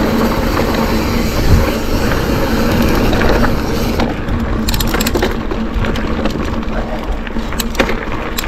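Mountain bike rolling fast over a dirt and gravel track, with tyre noise and wind rushing over a chest-mounted action camera. A few sharp clicks and rattles come about five seconds in and again near the end.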